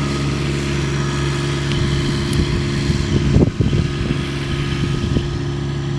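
An engine running steadily at one unchanging pitch, with a few brief bumps about three and a half seconds in.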